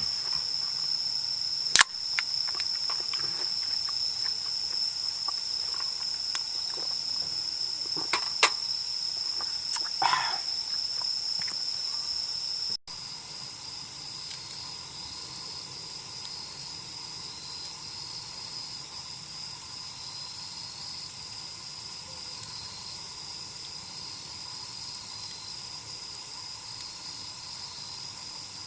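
Chorus of crickets and other insects trilling steadily on one high pitch, with a few sharp knocks in the first half, the loudest about two seconds in. About halfway through the sound cuts abruptly to a different insect chorus, higher and pulsing, a little quieter.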